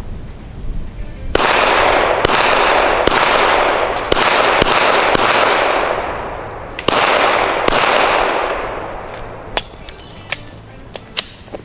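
Unsuppressed 9mm Glock-pattern pistol (Lone Wolf Limited Edition 2014 on a factory barrel) firing about eight shots in uneven quick strings, each shot followed by a long echoing tail. A few lighter clicks come near the end.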